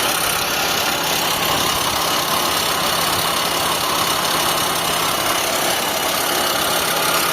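Mitsubishi Lancer engine idling steadily with the air conditioning off and both electric cooling fans running, with a constant grinding noise in the engine bay. The mechanic traces the grinding to the A/C compressor, whose bearing is noisy while the compressor is not engaged.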